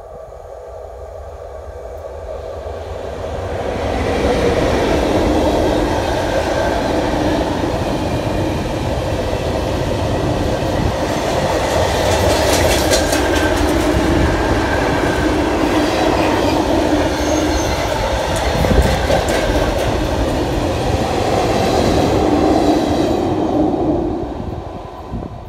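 Freight train passing close by on the main line. The rumble builds as the locomotive approaches, then a long string of loaded flat wagons and tank wagons rolls past with steady rumbling and wheel clatter over the rails. It fades quickly near the end as the last wagon passes.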